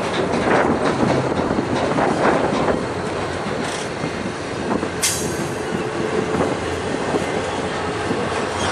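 Double-stack intermodal container cars rolling slowly past on the rails, with steady wheel-and-rail noise and one sharp knock about five seconds in.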